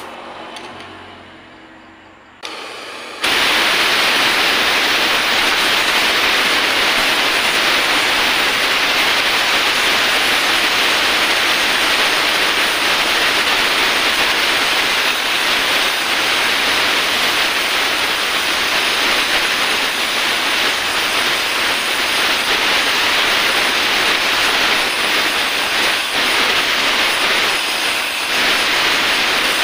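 Oxy-acetylene welding torch flame hissing as it heats an aluminium motorcycle crankcase. The first three seconds are quieter and fading, then the hiss comes in loud and steady.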